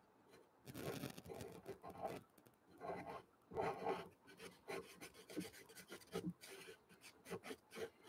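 Stabilo CarbOthello pastel pencil scratching over watercolour paper coated in clear gesso, in short, irregular strokes that start about half a second in.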